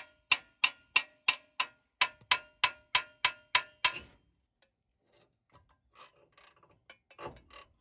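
Hammer striking a steel steering knuckle: about a dozen sharp, ringing metal blows, roughly three a second, to break the knuckle loose from the lower ball joint's tapered stud. After that come a few faint clunks as the freed knuckle is handled.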